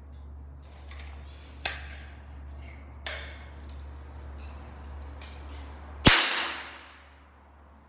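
Toy smoke pistol firing: a sharp, loud pop about six seconds in, with a hiss that fades over about a second. Two smaller clicks come before it, about a second and a half and three seconds in.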